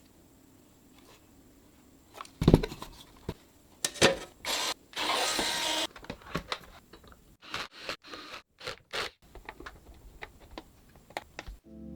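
PC parts being handled and fitted together: a loud knock, then a string of sharp clicks and taps, with a scraping slide lasting about a second midway through. Music starts right at the end.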